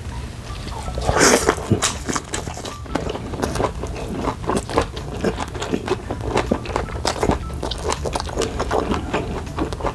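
Close-miked biting into a piece of grilled beef steak about a second in, then wet chewing with many small clicks and smacks, over a steady low hum.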